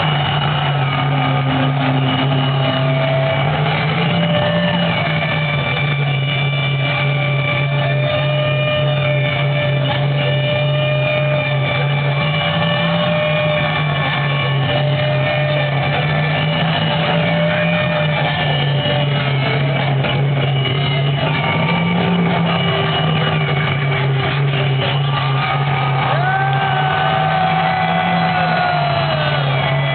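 Droning electronic intro music over an arena PA: a low drone that steps between two pitches every few seconds, with long held tones sounding higher up, recorded dull and narrow on a camcorder.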